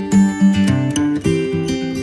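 Background music: acoustic guitar strummed in a steady rhythm, moving to a new chord about a second in.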